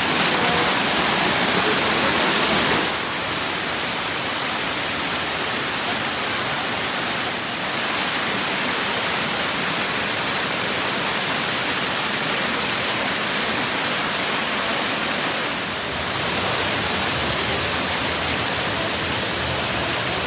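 Waterfall water rushing, a steady hiss that dips or shifts slightly in level about three, seven and a half, and sixteen seconds in.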